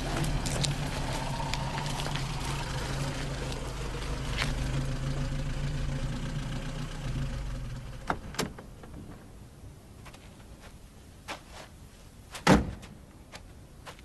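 Vintage car's engine running steadily, then switched off about eight seconds in. A few light clicks follow, and near the end a car door shuts with a loud thud.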